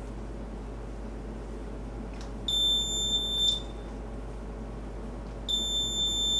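Arduino-driven buzzer giving two high-pitched beeps, each about a second long: one about two and a half seconds in and another near the end. Each beep means the ultrasonic sensor has detected an object closer than 20 cm.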